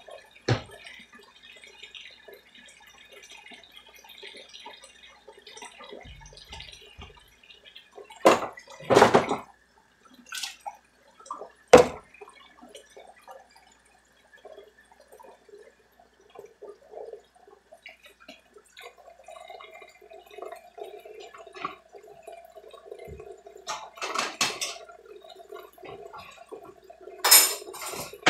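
Dishes knocking and clinking against each other and the stainless steel sink in soapy dishwater, with a few sharp clatters. Tap water runs into the sink during the second half.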